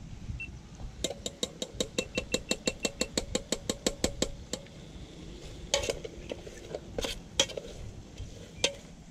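A metal ladle stirring stew in a black metal pot, clinking against the pot's side. About a second in, a quick, even run of taps begins, roughly six a second, and goes on for about three and a half seconds. After that come a few scattered knocks.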